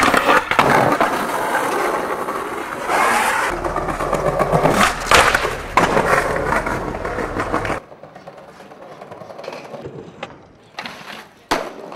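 Skateboard wheels rolling hard over concrete and paving, with a board grinding along a concrete ledge and the sharp clacks of tail pops and landings. About two-thirds of the way through the sound drops sharply, and a few lone clacks of a pop and landing follow.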